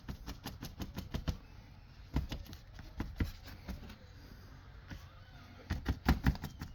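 Irregular light clicks and knocks of hands handling tools and materials while wetting fiberglass mat with resin, with a louder cluster near the end.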